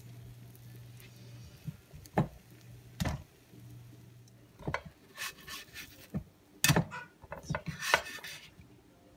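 Silicone spatula scraping along a nonstick frying pan and knocking against it while sliding under a cooked pancake to lift it out. The scrapes and knocks come in a cluster in the second half, after a low steady hum and two sharp knocks earlier on.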